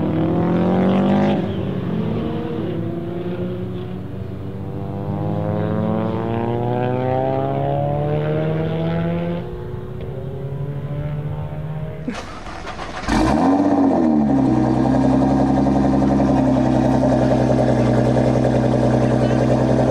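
Cars accelerating past on a circuit, engine pitch climbing and dropping with the gear changes. About two-thirds of the way through it changes to a close-up of an 800 hp Nissan GT-R's twin-turbo V6 through its Capristo exhaust: one short rev, then a steady idle, louder than the passes.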